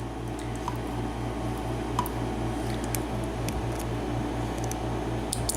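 Faint clicks and taps of small metal parts as a padlock's core is worked at during disassembly, over a steady low hum.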